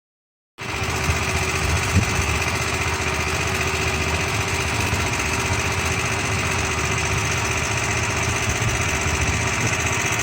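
A small engine running steadily at an even speed, cutting in abruptly about half a second in after silence.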